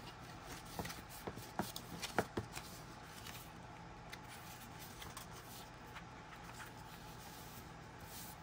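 Paper book pages rustling and crackling as they are handled and pressed flat by hand. A quick run of small crackles comes in the first two and a half seconds, then only faint rubbing.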